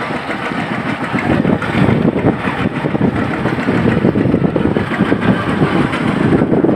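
A boat's engine running steadily under loud, rough wind noise on the microphone.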